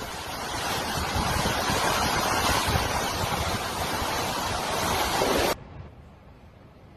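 Hurricane-force wind and driving rain: a loud, steady rush with gusts buffeting the microphone. About five and a half seconds in it cuts off abruptly to a much fainter low rumble.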